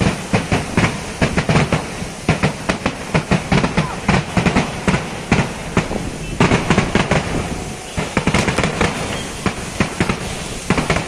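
Kerala temple-festival fireworks (vedikkettu): a dense, rapid run of firecracker bangs, several a second.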